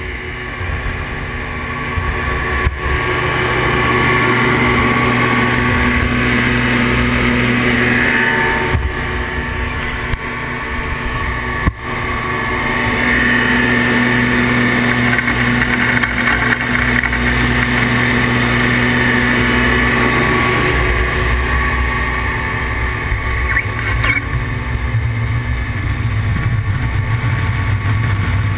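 Twin Yamaha 150 HPDI two-stroke V6 outboards running steadily at speed, with water rushing in the wake close behind them. A single sharp knock comes about twelve seconds in, and the engine note shifts lower about three quarters of the way through.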